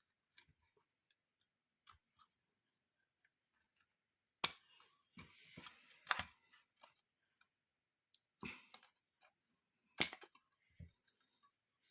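Scattered light clicks and short scrapes of hands handling and taking apart a diagnostic interface's plastic case and circuit board, the sharpest clicks about four and a half, eight and a half and ten seconds in.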